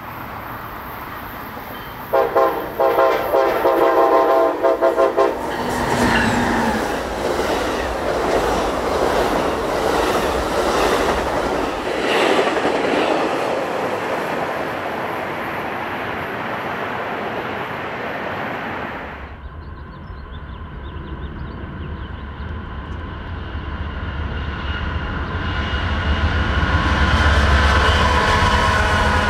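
A train horn sounds several short blasts, then a passenger train rushes past at speed with rail and wheel noise. About twenty seconds in, this gives way to the deep rumble of BNSF diesel freight locomotives, growing louder as they work toward the track.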